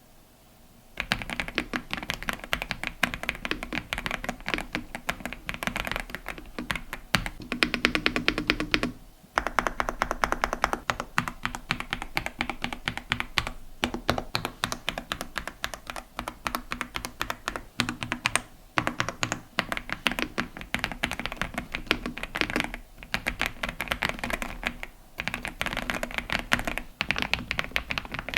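Continuous fast typing on the AULA F108 Pro full-size mechanical keyboard, its pre-lubed linear switches giving a dense run of quick keystroke clacks. The typing starts about a second in and breaks briefly a few times.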